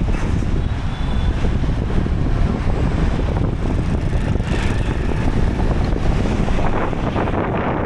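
Wind rumbling and buffeting on the microphone, a steady loud low roar.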